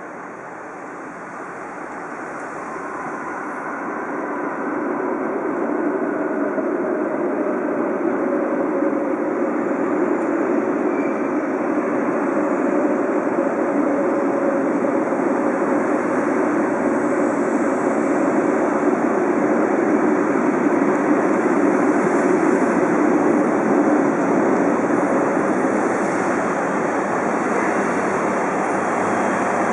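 Trensurb electric multiple unit train arriving at a station platform: its rumble grows louder over the first six seconds as it approaches, then holds steady as it rolls in and slows, with a faint steady tone under the noise.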